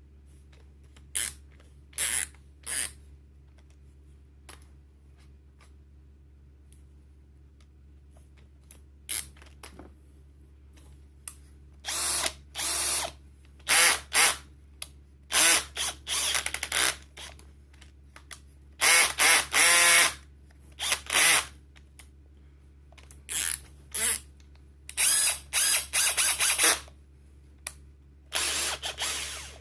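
Bosch 18V cordless hammer drill/driver run in short trigger pulls, about a dozen brief spins of its motor and metal chuck, some well under a second and a few lasting a second or two.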